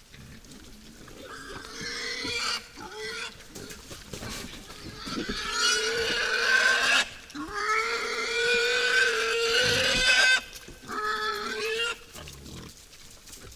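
Wild boars squealing: a series of long, high calls that grow louder and longer partway through, the longest about three seconds.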